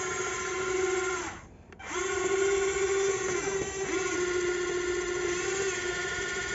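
Electric drive motor of a radio-controlled GAZ-66 model truck on tracks, whining steadily as it drives. About a second and a half in, the whine winds down and stops for half a second, then starts again. Near four seconds it dips briefly in pitch.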